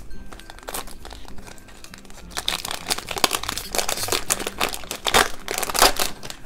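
Foil wrapper of a Japanese Pokémon trading card booster pack crinkling as it is handled and torn open, sparse at first and then a dense crackling from about a third of the way in until near the end.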